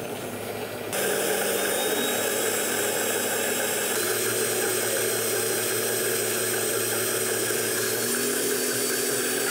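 Commercial high-powered blender running. It jumps to a louder, higher speed about a second in, then holds steady while pureeing a thick, creamy coconut sauce.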